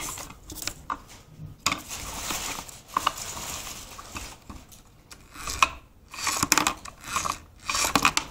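Irregular rustling and clicking handling noises, a scattering of short noisy bursts with gaps between them, as a hand works close to the microphone around LEGO bricks.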